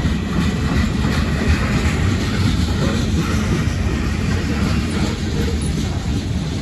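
Freight train rolling past, a steady loud rumble of wheels on rails with faint repeated clicks.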